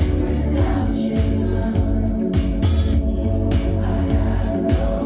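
A live band plays an indie-pop song, with a steady kick-drum beat about twice a second, cymbals, and held synth or keyboard chords, and a singer's voice over it.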